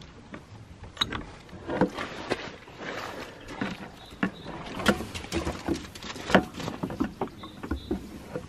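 Irregular footsteps and small knocks on gritty, straw-strewn ground, with the sharpest knock about six seconds in.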